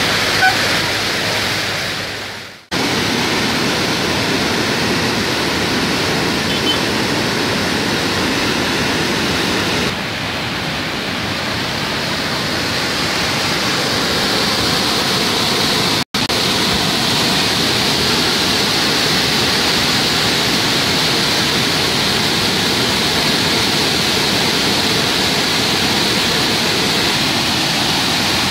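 Steady rushing of a river in full flood, churning fast below a bridge. The sound dips and cuts out briefly about two and a half seconds in, and drops out for an instant again about sixteen seconds in.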